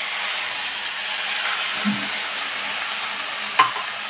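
Milk poured into a hot kadai of ghee-roasted grated coconut, sizzling steadily. A single light knock comes about three and a half seconds in.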